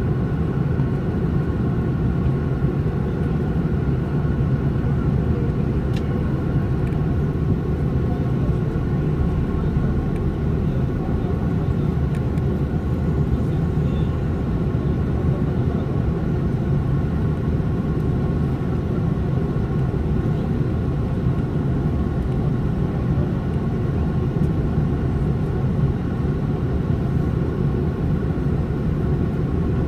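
Steady cabin noise of an Airbus A330-300 in flight on approach: a low, even rumble of engines and airflow with a faint higher hum, heard from inside the cabin beside the wing.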